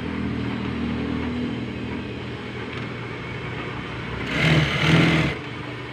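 Sewing machine motor humming steadily, then a louder stretch of stitching lasting about a second, starting around four seconds in.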